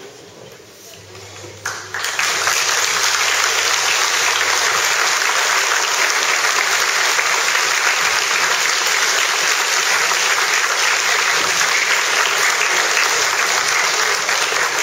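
Crowd applauding: a faint murmur, then applause breaks out about two seconds in and carries on steadily.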